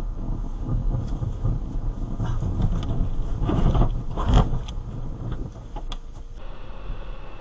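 Car driving on a snowy, icy road, heard from inside as a steady low rumble of road and engine noise. About four seconds in it grows louder, with a rush and a sharp loud thump.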